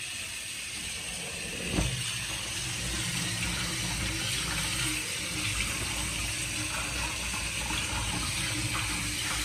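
Tap water running steadily onto boiled spaghetti in a steel colander in a stainless steel sink, rinsing the pasta in cold water so it won't stick. A single knock about two seconds in.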